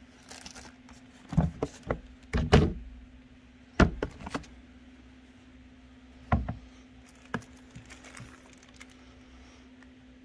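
Bagged urethane skateboard wheels being handled in a plastic tote: a run of knocks and thunks as wheels are moved and set against each other and the tote's sides, with crinkling of the plastic bags. The knocks are loudest in the first four seconds, with a few more about six and seven seconds in.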